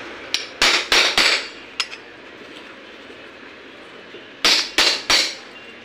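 Sharp metal-on-metal knocks with a short ring after each, as a 32 ring spanner is struck down against a new oil seal on a TVS XL100 front fork tube to seat it: three quick knocks in the first second or so, a lighter one, then three more near the end.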